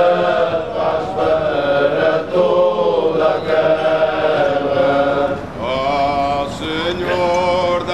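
A group of men singing a slow hymn together, unaccompanied, with long-held notes: the traditional chant of Azorean romeiros (Lenten pilgrims).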